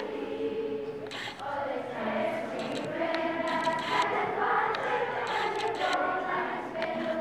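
School choir of boys' and girls' voices singing together, sustained sung notes with crisp consonants.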